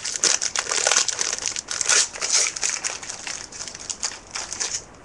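Trading card pack wrapper being torn open and crinkled by hand, a dense run of quick crackles and rustles.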